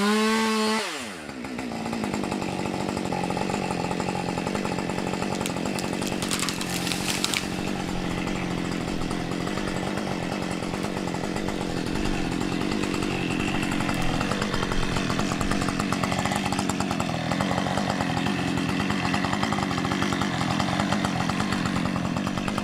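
Two-stroke chainsaw cutting into a dead tree. Its pitch drops about a second in as the chain bites into the wood, then holds at a steady loaded pitch through the cut.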